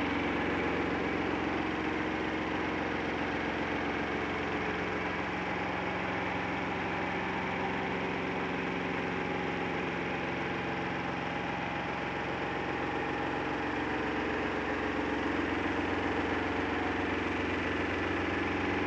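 Washing machine running with a steady drone and hum, which sounds like an airplane in flight. The tones stay level throughout, with its timer counting down the last couple of minutes of the cycle.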